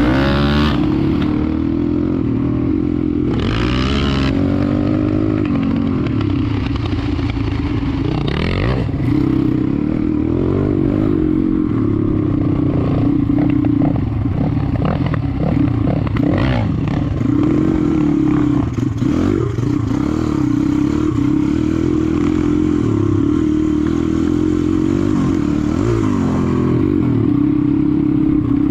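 Four-stroke dirt bike engine running under load, the revs rising and falling again and again as the throttle is worked, with a few short clattering and scraping noises.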